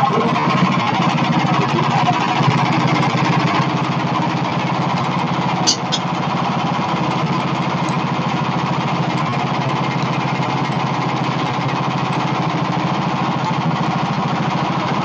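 Sawmill engine running steadily and evenly under way, with two short sharp clicks about six seconds in.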